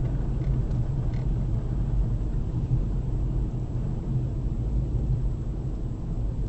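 Steady low rumble of a car driving on snowy roads, engine and tyre noise heard from inside the cabin.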